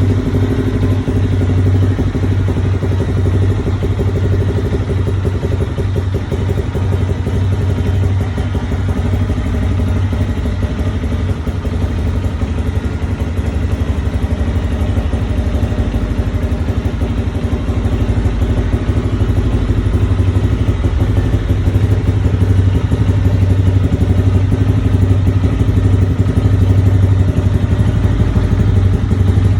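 Motorcycle engine running steadily at idle through a Taro GP V3 aftermarket exhaust, with a deep, even note, getting a little louder about two-thirds of the way through.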